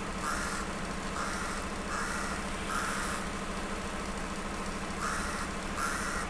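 Diesel engine of an SU42 shunting locomotive running steadily at the platform, a low, even hum. Over it a bird gives six short calls, four in the first three seconds and two more near the end.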